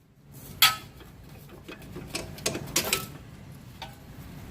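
Hand tools working a bolt on a car's front suspension: one sharp metallic click about half a second in, then a run of irregular metal clicks and rattles.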